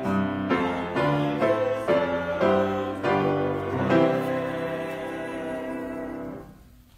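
A hymn sung to piano accompaniment, the chords changing about twice a second. It then settles on a held final chord that fades out about six and a half seconds in.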